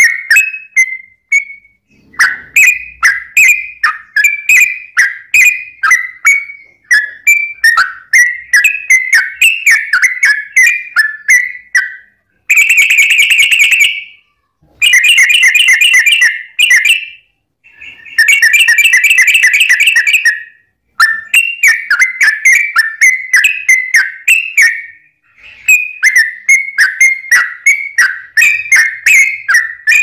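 Yellow-vented bulbul (trucukan) singing a long run of quick, bubbly chirping notes. Around the middle come three longer, fast rattling trills, each a second or two long.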